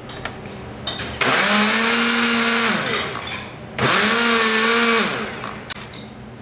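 Small electric kitchen blender pulsed twice, about a second and a half each time. The motor whine rises as it spins up and falls as it stops. It is chopping pear and onion pieces that would not blend until a little fish sauce was added as liquid.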